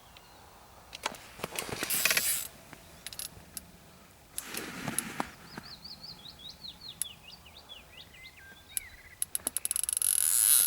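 A small bird singing a run of quick, repeated chirps, among rustling and knocks of nearby handling. Near the end a fast series of clicks runs into a steady high hiss.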